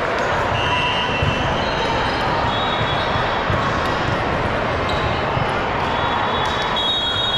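Basketball game on an indoor court: the ball bouncing, with short high sneaker squeaks, over a steady din of crowd chatter.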